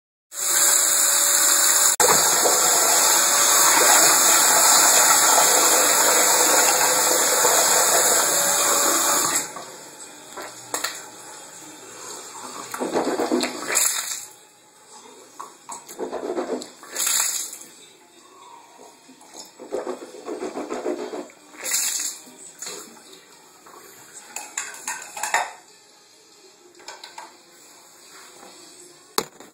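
Bathroom water rushing loudly and steadily for about nine seconds, then cutting off abruptly. After that come a few shorter, quieter bursts of noise, spaced irregularly.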